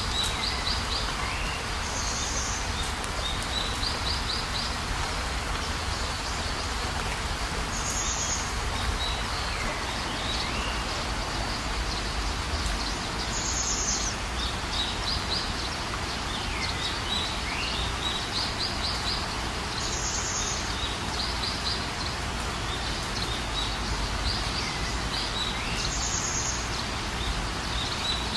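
High chirps, short rapid trills and swooping calls of small animals, the same pattern coming round about every six seconds, over a steady hiss of background noise.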